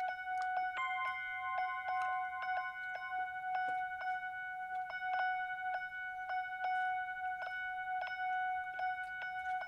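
Biodata sonification of wave-soaked moss: electronic chime-like tones, with several pitches held steadily under short struck notes plinking a few times a second. A higher tone joins about a second in and drops out after about two seconds.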